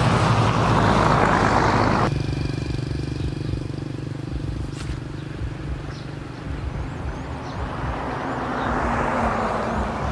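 A motor vehicle engine: a loud rush of noise that cuts off suddenly about two seconds in, then a steady low hum, with a second swell of noise rising and fading near the end.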